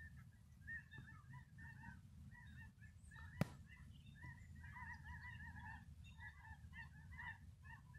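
A flock of geese honking as it flies over: many short overlapping calls, faint, over a low steady rumble. A single sharp click about three and a half seconds in.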